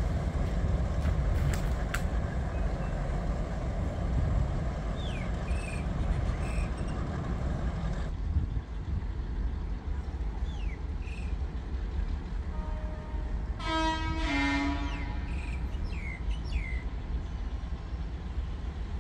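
Train horn blowing a short blast about two-thirds of the way through, stepping down in pitch partway, over a steady low rumble of rail traffic that eases about eight seconds in. A few short bird chirps come through now and then.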